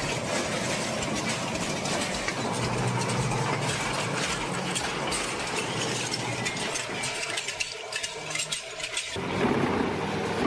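Large industrial shredding machine running under load: a steady engine drone with dense clattering and cracking as material is broken up. The noise thins out between about seven and nine seconds in, then a fuller machine sound comes back abruptly.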